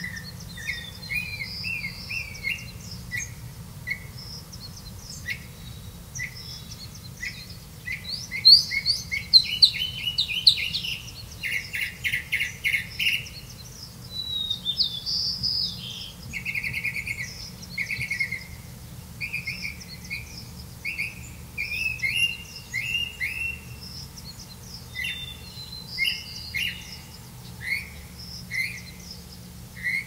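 Songbird nestlings giving begging calls: short, high chirps repeated in quick runs, loudest and densest about a third of the way in.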